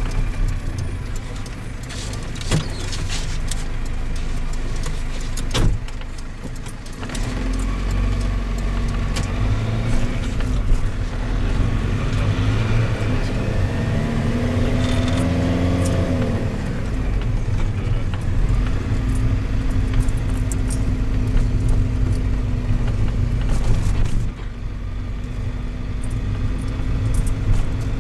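Minibus engine and road noise heard inside the cabin, with light rattling from loose fittings throughout. About halfway through, an oncoming vehicle passes close by, its sound rising and falling away.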